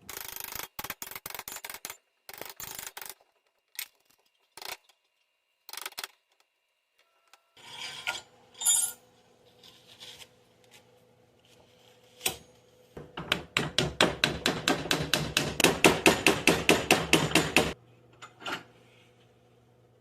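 Hand rubbing and scraping on the katana's parts during reassembly: scattered scrapes at first, then a fast, even run of rasping strokes, about seven a second, lasting several seconds.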